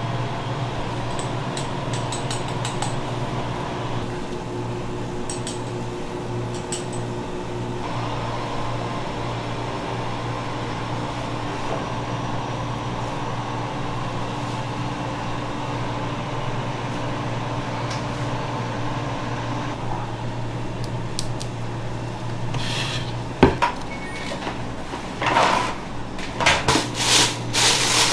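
Light clicks and clinks of pastry utensils over a steady hum of kitchen equipment. About 23 seconds in there is a sharp knock, followed near the end by several short, noisy scraping sounds of things being handled on the bench.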